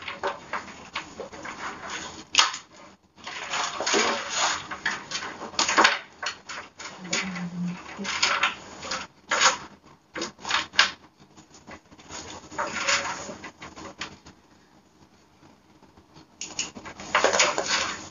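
Bags and their straps being handled and hung on hooks inside a wardrobe cabinet: irregular rustling with scattered clicks and knocks, quieter for a couple of seconds before picking up again near the end.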